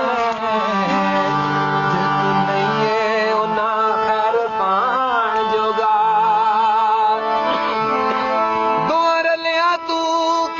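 Male voice singing a Punjabi dohre/mahiye folk song, with wavering, ornamented held notes over sustained instrumental tones.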